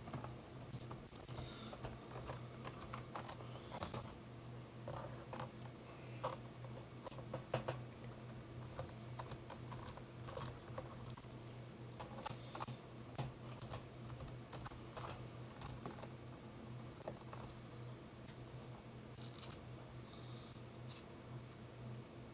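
Faint, irregular clicks and plastic taps of a budget mechanical keyboard being handled while its small case screws are undone with a PH00 screwdriver, over a low steady hum.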